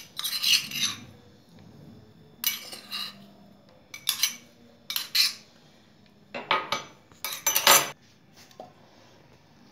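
A spoon scraping and clinking against a bowl in about six short strokes as mashed potato stuffing with crushed garlic is mixed.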